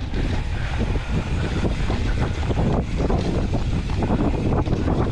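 Wind buffeting the microphone of a mountain-bike rider's camera, with the rumble and rattle of a Polygon Siskiu T8 full-suspension mountain bike rolling over a rough dirt trail.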